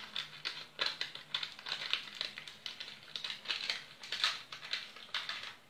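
Paper rustling and crinkling in irregular crackles as it is rolled and folded by hand into a piping cone.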